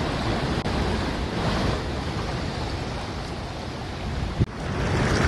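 Storm floodwater rushing and churning across a street, a steady loud rush of water. A brief knock about four and a half seconds in.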